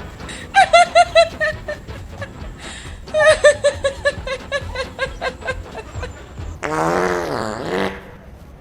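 Fart sounds: a short run of rapid sputtering pops about half a second in, a longer sputtering run about three seconds in, then one drawn-out wavering fart lasting about a second near the end.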